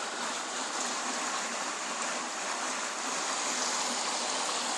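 Heavy rain falling in a steady hiss, loud enough to cover the Geiger counter's clicks.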